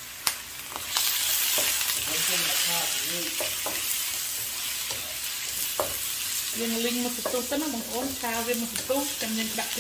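Food sizzling in hot oil in a pan. The sizzle starts suddenly about a second in, just after a sharp click, and then runs on steadily.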